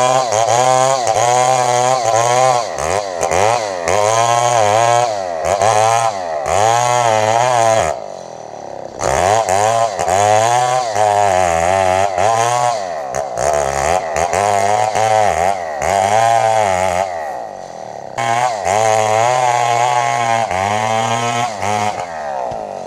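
Two-stroke chainsaw running at high revs under load, its engine pitch rising and falling over and over as it works through a large log about as wide as its bar. The engine twice drops back to a lower speed briefly, about eight seconds in and about eighteen seconds in, before revving up again.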